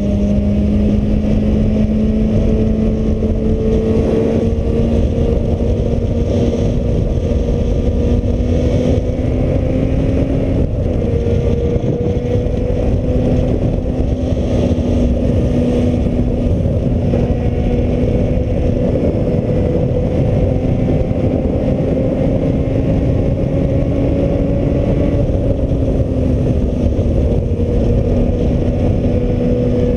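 Suzuki Bandit's inline-four engine pulling steadily under way, its note climbing slowly and dropping twice, about ten seconds in and again near the end. Heavy wind noise buffets the helmet-free GoPro microphone throughout.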